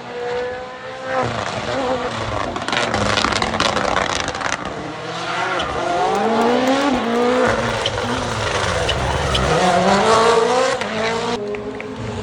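Rally car driven hard through a tarmac stage section, its engine revving up and dropping back repeatedly through gear changes, with sharp cracks and pops from the exhaust and some tyre noise. The sound cuts abruptly near the end.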